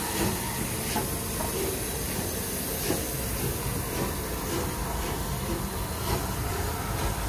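Bulleid Battle of Britain class steam locomotive moving slowly past, with a steady hiss of steam from around its cylinders and a few soft knocks from the wheels and motion.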